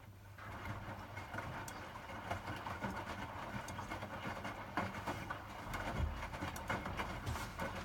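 Hotpoint WMFUG 942 washing machine tumbling its wet load: water sloshing in the drum with frequent knocks, starting up about a third of a second in.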